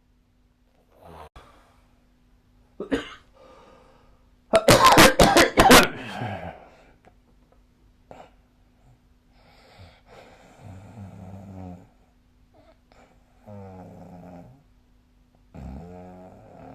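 A sleeping person snoring. About five seconds in there is a loud, sudden rasping burst lasting a second or so. It is followed by three low, buzzy snores of one to two seconds each, spaced a few seconds apart.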